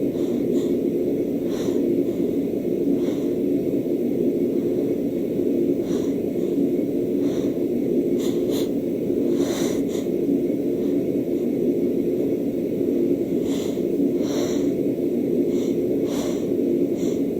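A woman with a head cold hitching through sneeze false starts: short, sharp breaths and sniffs at irregular intervals, bunching up about halfway through and again near the end. A steady low hum runs underneath throughout.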